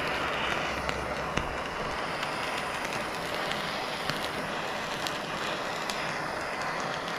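Handheld gas torch flame hissing steadily as it sears raw yellowtail nigiri, with a few faint clicks along the way.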